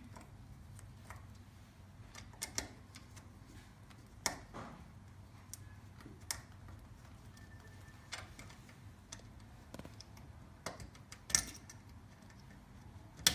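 Irregular light clicks and taps of tools and metal lock parts as an old cabinet door lock is taken off, with a few sharper knocks near the end.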